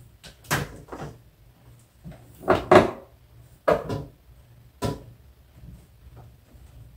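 Metal curtain grommets being slid and pushed along a curtain rod as a curtain is taken down: a series of about five short scraping rattles, the loudest about three seconds in.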